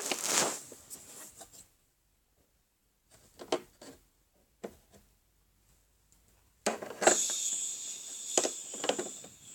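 A couple of light plastic clicks from toy figures being handled, then from about seven seconds in a steady hiss of a toy shower spraying.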